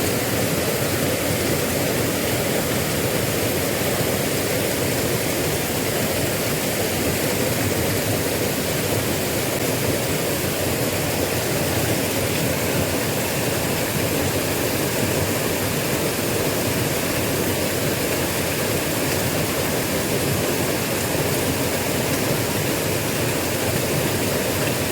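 Small river's water rushing steadily over its bed, a constant even wash with no pauses.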